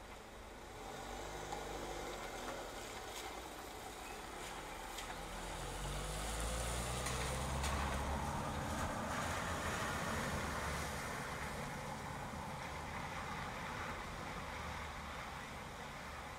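A car drives past on a rain-wet street: its engine rumble and the hiss of tyres through water swell to a peak around the middle and fade away, over steady rainfall.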